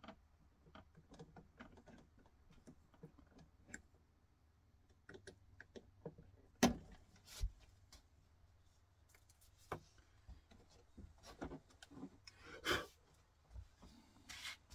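Small parts and items being handled on a worktable: scattered light clicks, taps and rustles, with a few sharper knocks as things are set down.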